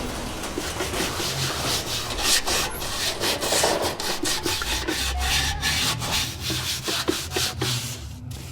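Quick back-and-forth rubbing strokes, as in scrubbing or hand sanding, on the surface of a 1930s studio light being cleaned up for restoration.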